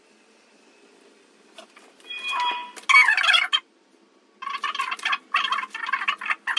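High-pitched, fast gabbling voice in bursts, like a video lecture's narration played back sped up through a laptop speaker. It starts about two seconds in, after near-silent room tone.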